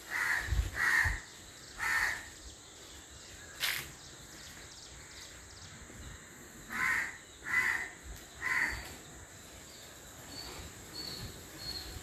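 A crow cawing in two series of three short caws, about five seconds apart, over a steady high thin tone. A few faint, high bird chirps come near the end.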